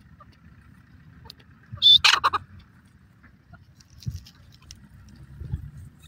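Grey francolin giving one short call about two seconds in: a brief high note followed by a quick rattle of sharp notes, over a low rumble.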